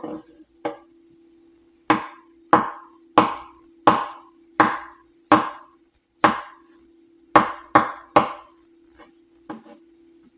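Kitchen knife slicing mushrooms on a cutting board: about fifteen sharp knocks at an uneven pace, roughly one every half second to a second.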